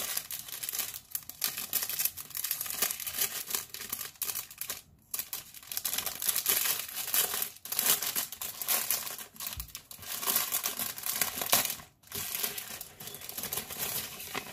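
Clear plastic packaging crinkling and rustling as hands open it, in uneven spells with short pauses about five and twelve seconds in.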